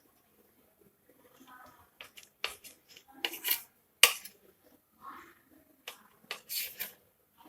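Bread slices layered with cheese being cut into small pieces: a run of crisp, uneven cutting clicks and snips, the sharpest about four seconds in, with light scraping between them.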